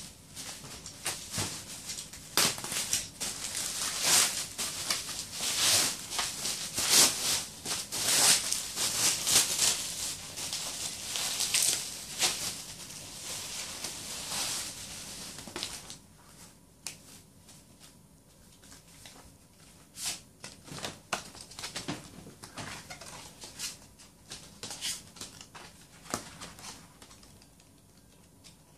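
Bubble-wrap packaging rustling and crinkling as it is handled, with many sharp crackles, through roughly the first half. After that come quieter, scattered taps and rustles of CD album cases and paper being handled.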